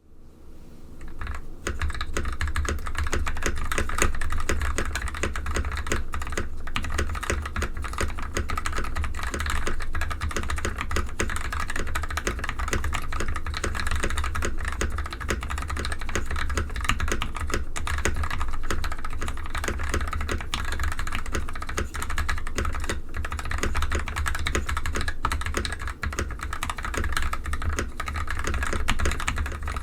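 Steady, fast typing on an NK65 Entry Edition custom mechanical keyboard with lubed Gateron KS3 Yellow linear switches, an aluminium plate and EPBT ABS keycaps: a dense, unbroken run of keystroke clacks that starts about a second in.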